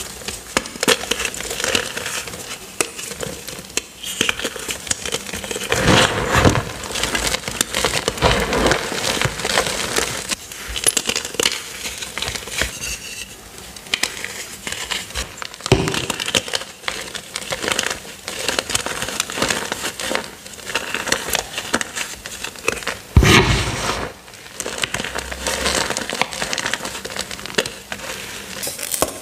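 Purple-dyed gym chalk, topped with cornstarch, crushed and crumbled by hand: a continuous dry crunching and crackling. There are louder crunches about six seconds in and again about twenty-three seconds in.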